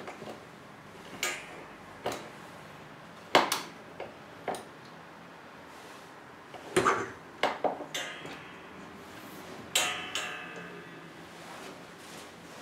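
Metal clicks and knocks from an old spring-balanced microphone boom arm being swung and repositioned, irregular and spread out, with its springs ringing briefly after a couple of the knocks.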